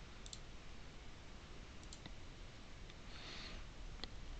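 A few faint computer mouse clicks, spaced out over a few seconds, over low background hiss.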